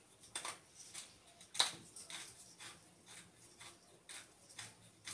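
Hand pepper grinder being twisted, a short gritty crunch with each turn, about two a second.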